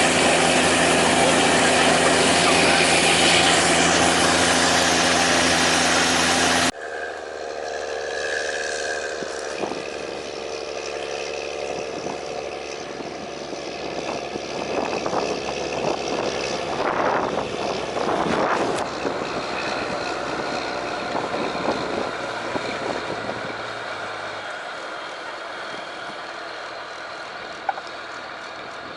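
Snowcat engine running loud and steady, then after an abrupt cut about seven seconds in, a quieter engine hum with scattered knocks and rattles that slowly fades.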